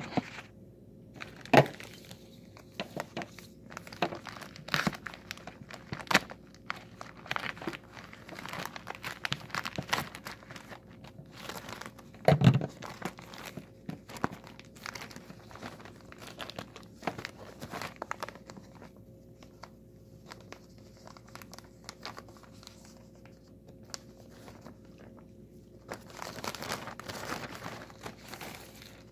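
Grey plastic mailer being torn open and handled: crinkling and tearing with scattered sharp crackles, a couple of louder knocks on the table (the loudest about twelve seconds in), and a longer patch of rustling near the end.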